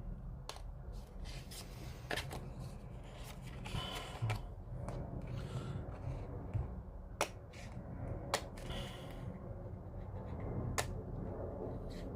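Cutting a waterslide decal out of its paper sheet: a handful of sharp clicks spread through, with soft papery rustling between them as the sheet is handled.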